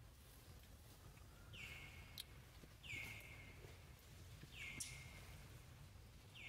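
Faint high-pitched animal calls, repeated four times about every one and a half seconds, each sliding down in pitch and then held briefly; two sharp clicks fall between them.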